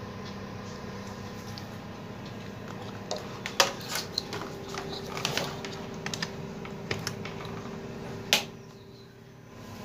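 Scattered small clicks and knocks of handling, then one sharp click about eight seconds in as a switch on an electrical power strip is pressed to power up a CRT television. A low steady hum runs underneath.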